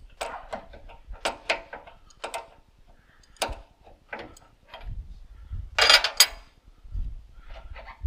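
A string of separate clinks and knocks from metal tools and parts being handled, with a louder clatter about six seconds in and a low rumble around it.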